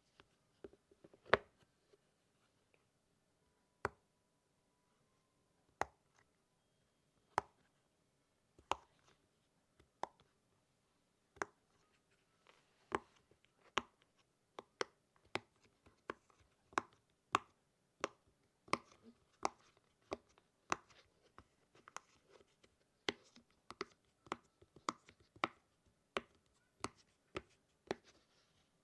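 Silicone pop-it fidget toy bubbles pressed one at a time, each pop a sharp click. The pops are a few seconds apart at first, then come quicker, about one or two a second, from about halfway on.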